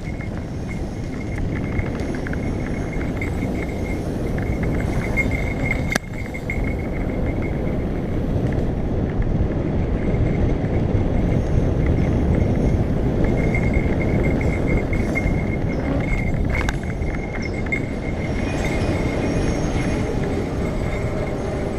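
Wind buffeting a helmet-mounted camera while mountain bike tyres rumble over a dry dirt trail at speed, with a steady high-pitched buzz running through the noise. There is a sharp knock about six seconds in and another near sixteen seconds.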